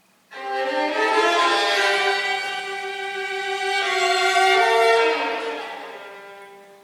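Violin playing a slow phrase of long held notes that begins just after the start and dies away near the end.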